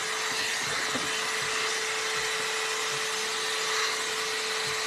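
Round-barrel hot-air brush dryer running steadily, blowing air with a constant whoosh and a steady motor hum.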